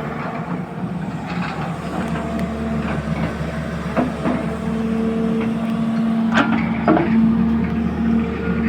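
An engine running steadily, with a few sharp knocks about four seconds in and twice more between six and seven seconds.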